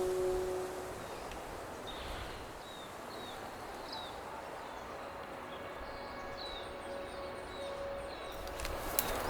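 Forest ambience: a small bird gives short, repeated chirps over a steady, even rushing background, with a few sharp clicks near the end.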